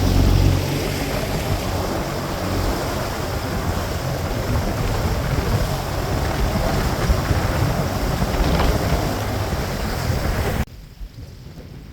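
Boat running across the water, with strong wind buffeting the microphone over the hull and water noise. It cuts off abruptly near the end, leaving a much quieter background.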